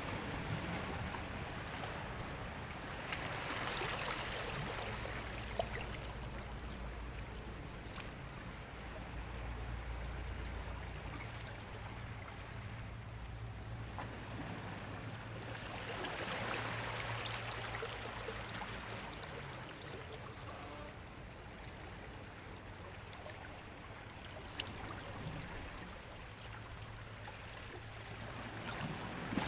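Ocean waves washing onto a shore, swelling in about every twelve seconds and then fading back, over a low steady hum.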